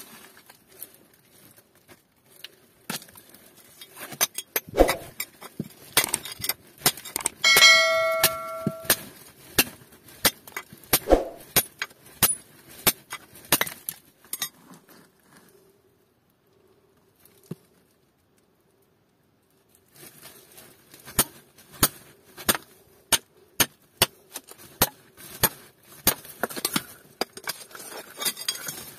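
Hammer striking metal against hard gold-ore rock: sharp, uneven taps and knocks. One blow about eight seconds in rings out with a metallic ring. The strikes stop for a few seconds about halfway, then resume.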